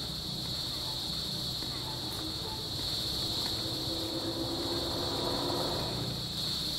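Insects buzzing in a steady, continuous high-pitched drone.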